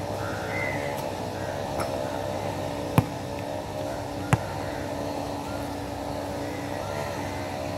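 A basketball bounces on a hard outdoor court, two sharp thuds about a second and a half apart.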